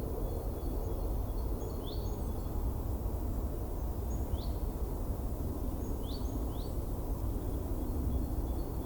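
Winter forest ambience: a steady low rumble of wind, with a few short, rising bird chirps, one about two seconds in, one near the middle, and a quick pair about six seconds in.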